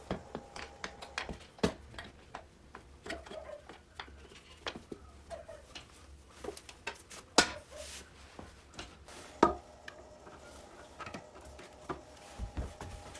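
Irregular clicks, taps and knocks of parts being fitted by hand onto a moped frame: the seat being seated and fastened, then the fuel tank being handled. Two sharper knocks stand out, about seven and nine and a half seconds in.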